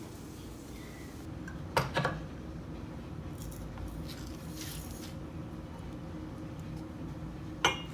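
Two sharp clicks or knocks, about six seconds apart, over a low steady hum.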